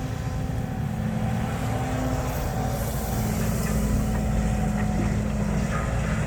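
Heavy diesel engine running steadily with a low drone, getting a little louder about halfway through.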